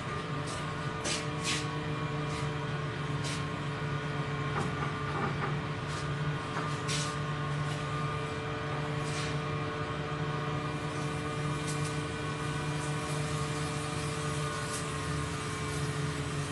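Steady mechanical drone of kitchen equipment, with sharp taps and knocks scattered through it, most of them in the first few seconds.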